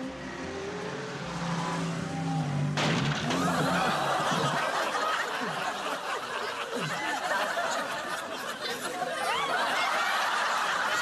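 Soundtrack music for the first few seconds, then about three seconds in a large audience bursts into laughter that keeps going.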